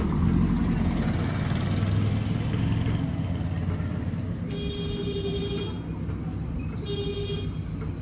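JCB backhoe loader's diesel engine running under load, a little louder in the first few seconds. A vehicle horn honks twice over it, one longer honk past the middle and a short one about a second later.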